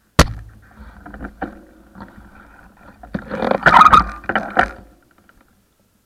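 Handling noise on a bike-mounted action camera: a sharp click right at the start, then scattered knocks and rubbing, with a loud cluster of clattering knocks and scraping in the middle, dying away about five seconds in.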